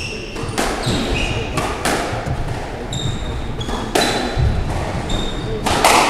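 Squash rally: the ball cracks off rackets and walls every second or so, amid short high squeaks of court shoes on the wooden floor.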